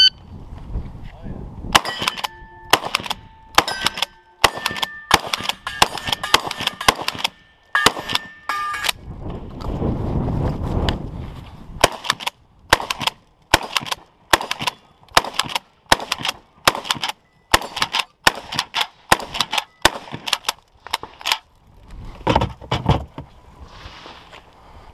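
A shot-timer beep, then rapid gunfire at steel targets that ring after the hits. After a short pause with handling noise, a 12-gauge pump shotgun (Mossberg 590M) fires an even string of shots about two a second, with a few more shots near the end.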